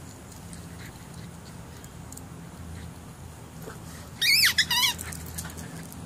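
A rubber squeaky ball squeaked twice in quick succession in a dog's mouth about four seconds in, two high, wavering squeals that fall in pitch, over a faint steady low hum.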